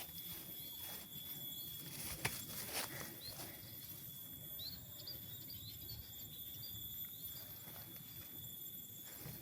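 Tropical forest ambience: insects hold a steady, high-pitched drone while birds give short chirps through the middle. A few sharp crunches of footsteps on the trail come around two to three seconds in.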